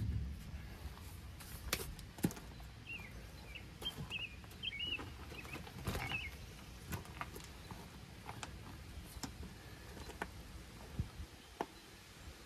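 Faint footsteps on gravel and scattered light knocks. A small bird chirps several times from about three to six seconds in.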